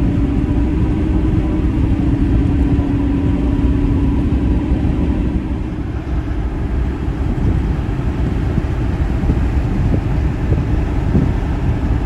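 Pickup truck driving on a paved road, heard from inside the cab: a steady engine and road rumble, with a low hum that fades about halfway through.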